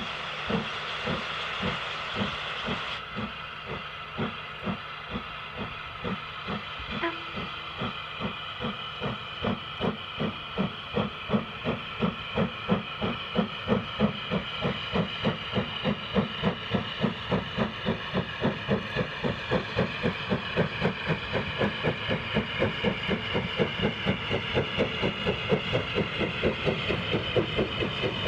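WD Austerity 2-8-0 steam locomotive 90733 working a freight train, its chimney exhaust beating steadily. The beats quicken from under two a second to about three a second as the engine gathers speed.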